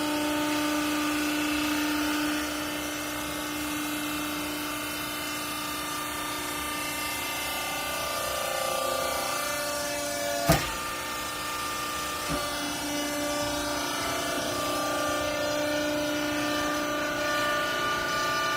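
Garment baler machine running: a steady mechanical hum with several held tones that shift about eight seconds in, and a sharp clank about ten and a half seconds in, with a lighter knock about two seconds later.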